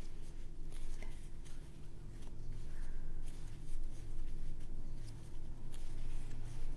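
Soft scratching and faint ticks of a 5 mm crochet hook being worked through medium-weight yarn, stitch after stitch, over a low steady hum.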